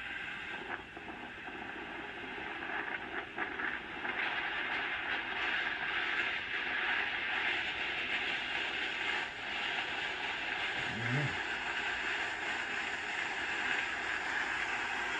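Steady rushing wind noise, growing louder about four seconds in, with a short low hum a little past the middle.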